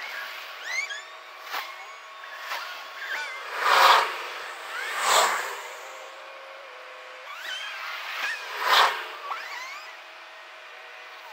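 Cars passing on the street by a road underpass: several short swells of noise over a steady background hum, the loudest about four seconds in, with a few short high chirps scattered through.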